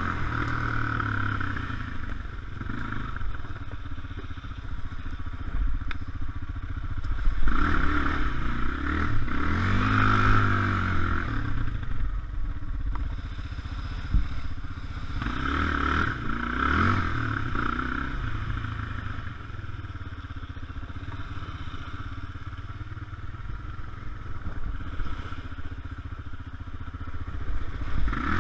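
Adly 300S quad's single-cylinder four-stroke engine running under way on a dirt trail, revving up and down with the throttle. It climbs hard about 8 seconds in and again about 15 seconds in, easing off in between, and runs lower and quieter in the last third.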